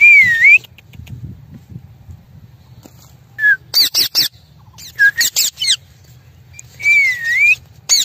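Rose-ringed parakeets calling: a loud whistled call that dips and then rises in pitch at the start and again near the end, with bursts of short, sharp shrieks that drop steeply in pitch between about three and six seconds in.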